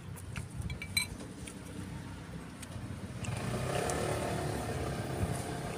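Street traffic noise, with a motor vehicle passing close by from about three seconds in and growing louder. A metal spoon clinks once on a bowl about a second in.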